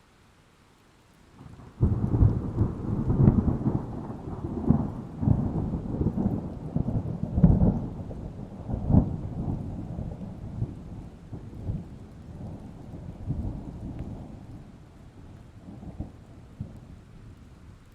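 A thunderclap: a sudden loud crack about two seconds in, then a long rolling rumble of repeated low booms that slowly fades, over light steady rain.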